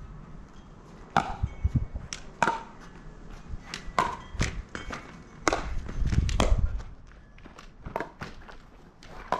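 Pickleball rally: sharp pops of paddles striking the hollow plastic ball, mixed with the ball bouncing on the court, irregularly spaced about half a second to a second apart. A low rumble sits under the hits about six seconds in.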